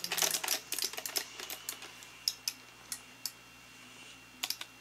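Quick, irregular clicks and taps. They come thick for about the first second, thin out to a few scattered ticks in the middle, and come thick again near the end.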